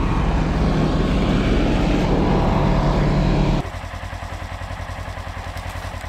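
Snowmobile engine running steadily and loudly. About three and a half seconds in it gives way to a quieter engine idling with a fast, even pulse.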